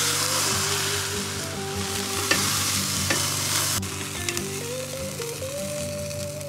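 Lion's mane mushroom steaks sizzling on a hot grill grate, with two sharp clicks about two and three seconds in. The sizzle cuts off abruptly a little before four seconds, leaving background music.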